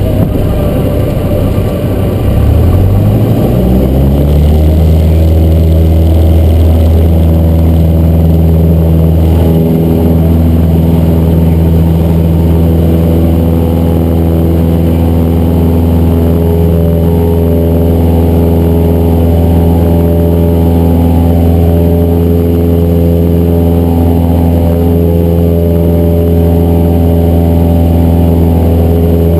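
Cessna 172's piston engine and propeller being throttled up. The pitch rises over the first few seconds, then holds steady at high power.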